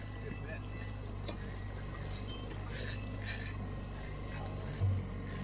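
Fishing reels being cranked in, a rasping whir with each turn of the handle about twice a second, over the steady low hum of the boat's motor. A single dull thump comes near the end.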